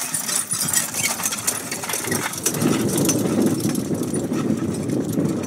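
Horse-drawn carriage passing at a trot, with hoofbeats and the carriage rattling in the first couple of seconds. From about two seconds in, a loud, low, steady buzzing noise takes over.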